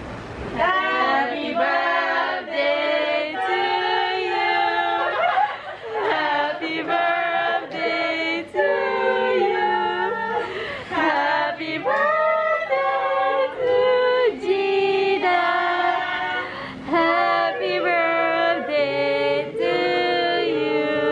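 Several voices singing a song together, with long held notes.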